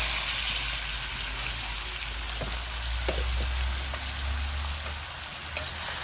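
Seasoned chicken frying in hot oil and curry in a pot, a steady sizzling hiss with a few faint ticks.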